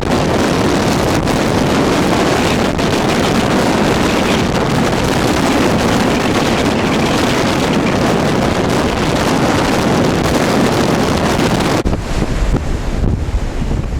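Steady roar of storm wind and surf, with wind buffeting the microphone. About twelve seconds in it changes abruptly to a lower, gustier rumble of wind on the microphone.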